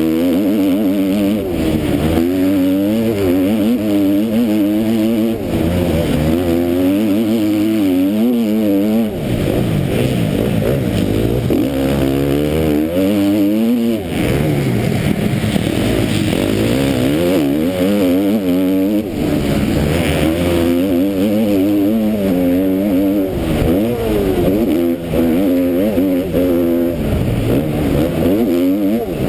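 KTM MX2 motocross bike's engine at racing speed, revving hard: the pitch climbs through each gear and drops back at every shift or roll-off, over and over, with deeper dips about nine and fourteen seconds in.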